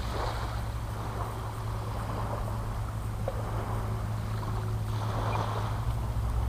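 Propeller aircraft engines droning steadily overhead, growing louder near the end as the aircraft comes closer.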